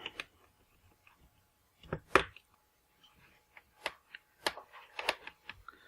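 Scattered light clicks and taps of a screwdriver and small screws against a laptop's plastic case as the screws are put back in, the loudest about two seconds in.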